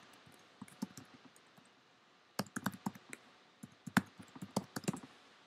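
Computer keyboard keys clicking as a web address is typed, in irregular runs of quick keystrokes with short pauses between them; the typing stops about five seconds in.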